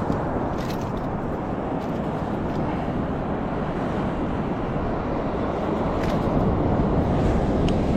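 Steady low rushing of wind buffeting the microphone at the shore, with a few faint clicks.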